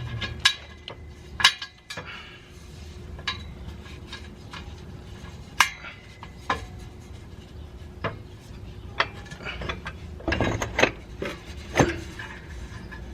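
Scattered sharp metal clinks and taps of hand tools and bolts against the exhaust flange hardware as the pipe is fastened, with a short cluster of knocks about ten seconds in, over a steady low hum.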